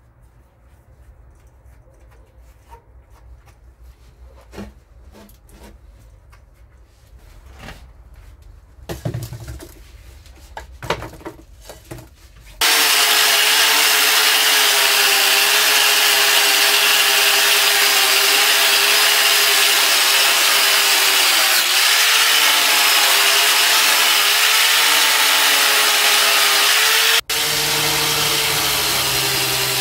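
Faint handling knocks, then about twelve seconds in a power tool fitted with a wire brush starts suddenly and runs loud and steady against a steel wheel rim, scouring off rust and old paint. It cuts out for an instant near the end and carries straight on.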